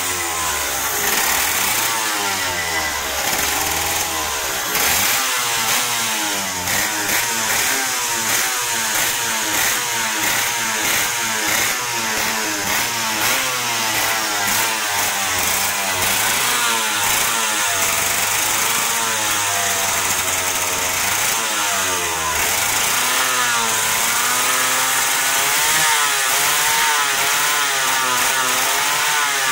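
IAME X30 125cc two-stroke single-cylinder kart engine running, its pitch rising and falling over and over as the engine speed wavers.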